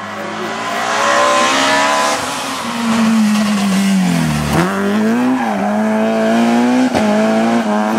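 BMW 3 Series rally car approaching flat out, its engine note climbing. The pitch drops sharply about four and a half seconds in as it comes off the throttle through the bend, with tyres scrabbling on the loose surface. It then revs back up and holds high revs as it pulls away, with a short sharp crack about seven seconds in.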